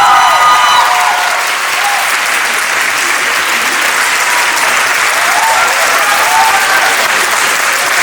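Audience applauding, with a few voices calling out partway through.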